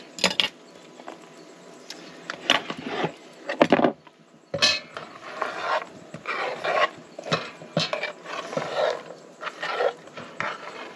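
Tongs scraping and clicking on a wooden chopping board as chopped carrot and celery are pushed off into a cast-iron camp oven, in a string of irregular clatters and scrapes that grow busier about halfway through.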